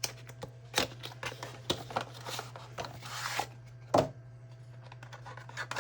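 Cardboard charger box being opened and handled: scattered clicks and taps, a rustling rub of packaging about two to three seconds in, and a sharper knock about four seconds in.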